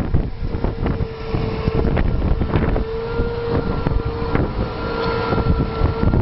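Case IH Magnum 300 tractor working under load as it pulls a mounted reversible plough through the soil past the microphone: a steady engine rumble with a steady whine over it, which breaks off briefly about four seconds in. Wind buffets the microphone.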